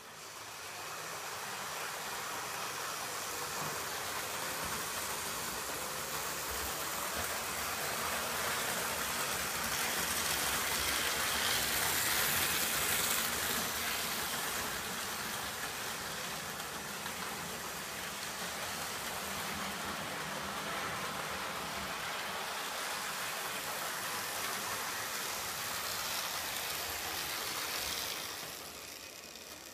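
Märklin H0 F 800 model locomotive running with its Alpine Express train: a steady whirr and rumble of the motor and wheels on metal track. It grows louder toward the middle as the train passes close, then dies down near the end as the train brakes automatically.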